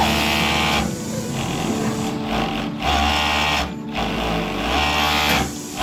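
Overlock (serger) machine running in three short bursts of under a second each, stitching and trimming the edge of fabric as it is fed through.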